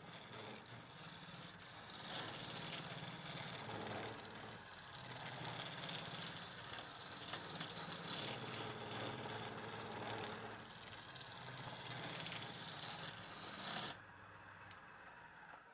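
Woodworking machine cutting wood: a steady motor hum under dense scraping and rattling. It drops away abruptly near the end.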